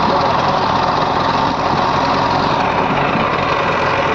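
A heavy machine's diesel engine running steadily.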